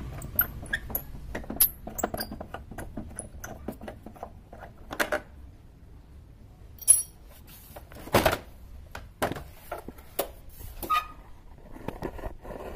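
Small metal clicks and clinks as a bolt and metal fittings are handled and worked loose from a motorcycle's plastic body panel, with a few sharper knocks in the second half.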